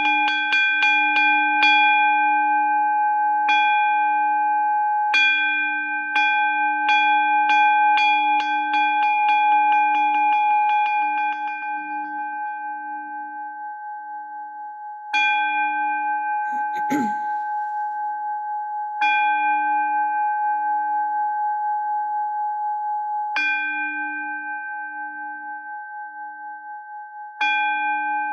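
Kansho temple bell tolled with a wooden striker before a Jodo Shinshu service: a quick run of strikes, then strikes about three a second, slowing to single strikes roughly every four seconds. Each strike rings on with a wobbling hum and dies away before the next. A short knock sounds about halfway through.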